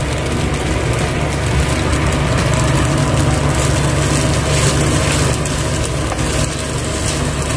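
A wooden spoon stirs and scrapes butter-fried vermicelli in a pan, with light frying sizzle, over a steady low hum.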